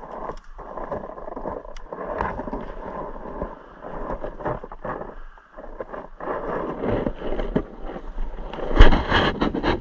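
Irregular rustling and scraping from a player moving on foot, his clothing and gear brushing against the microphone, with a sharp knock near the end.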